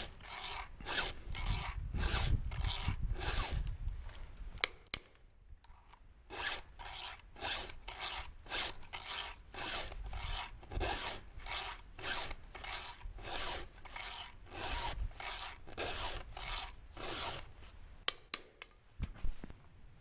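Round chainsaw file stroked by hand across the cutters of a skip-tooth, round-ground saw chain, sharpening each tooth: a rasping stroke about twice a second, with a brief pause about five seconds in and a few clicks near the end.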